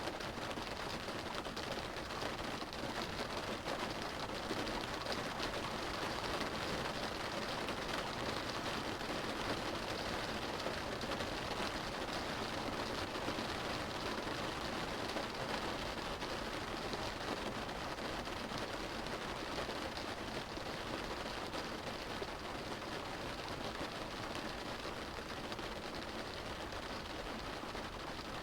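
Steady rain drumming on a car's roof and windows, heard from inside the cabin as a dense, even patter.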